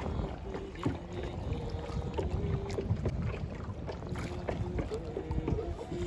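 A boat rower singing while paddling, long held notes stepping from one pitch to another, over wind rumble on the microphone and a few knocks from the boat.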